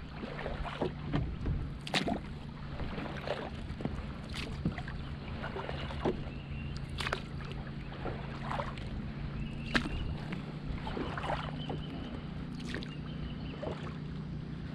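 Kayak paddle strokes on calm lake water: irregular splashes and drips every second or two as the blades dip on alternate sides, over a steady low hum.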